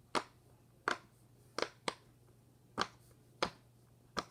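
Silicone pop-it fidget toy being popped on its loud side: seven sharp single pops, spaced unevenly, mostly under a second apart.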